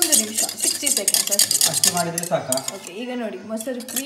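A whisk beating curd in a bowl: rapid, continuous scraping and clicking strokes against the bowl, with a voice in the background.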